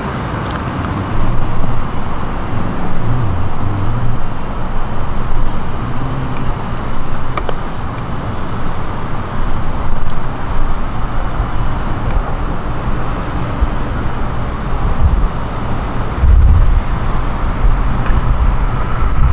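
Steady outdoor background noise with a low, uneven rumble. There are louder low buffets about sixteen seconds in and again near the end.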